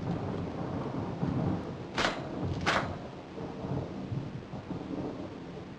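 A low, steady rumble like thunder, with two sharp cracks less than a second apart about two seconds in.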